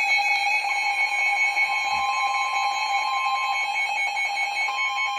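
Emergency Alert System attention signal: a loud, steady two-tone alarm held without a break. It heralds a high wind warning.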